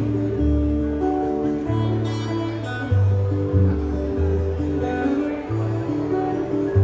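Live folk band playing an instrumental passage between sung verses, led by plucked acoustic guitar over low held notes.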